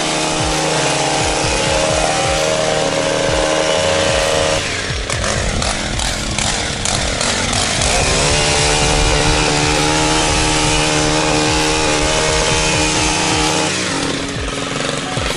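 Two-stroke engine of a gas pole hedge trimmer running at high revs while its blades cut through a shrub. About a third of the way in the revs go unsteady for a few seconds, with some clicking. They then hold high again and drop back near the end as the trimmer is lowered.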